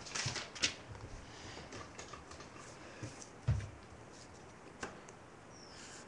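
Irregular light clicks and taps from things being handled at a desk, with a dull knock about three and a half seconds in.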